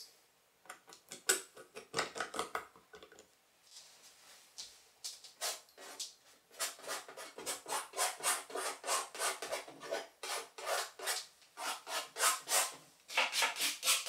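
Palette knife scraping and spreading paint across a canvas in quick, repeated rasping strokes, with a short lull about three seconds in.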